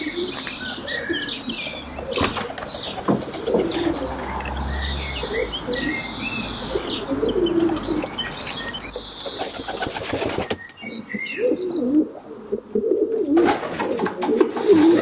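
Domestic pigeons cooing in a loft, with higher chirping calls and short clicks and wing flaps. The sound drops for a few seconds about ten seconds in, then the cooing comes back.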